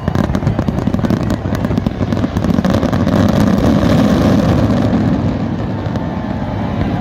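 New Year's fireworks going off: rapid crackling bangs in quick succession that merge into a dense, continuous rumble, loudest a few seconds in.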